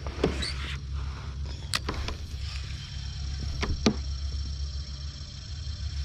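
Electric kayak motor running with a steady low hum and a high whine, with a few sharp clicks from the spinning reel and rod being worked.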